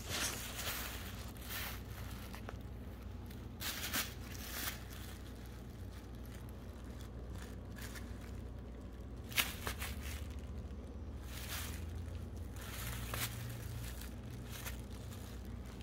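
Steady low hum with scattered short rustling and handling noises, and one sharp click about nine seconds in.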